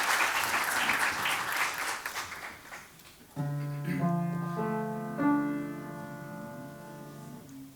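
Audience applause dies away over the first three seconds. Then a piano plays a held chord from about three and a half seconds in, with notes added one after another, and the chord slowly dies away.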